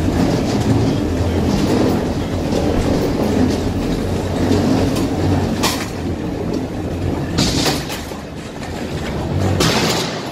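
Cabin noise of an Airbus A320 taxiing on the ground after landing: a steady rumble of wheels and airframe with cabin rattling. A few louder rattles come about halfway through and again near the end.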